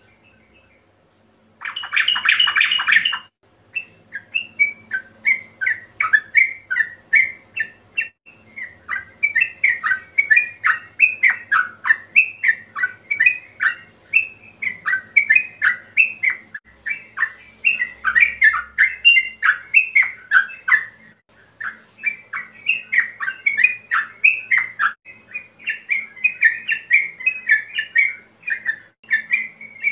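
Male yellow-vented bulbul (trucukan) singing: about a second and a half of dense harsh chattering, then a long rapid run of short, quickly repeated notes with only a brief pause near two-thirds of the way through. This is the fast, continuous 'ropel' song of a male calling out a rival.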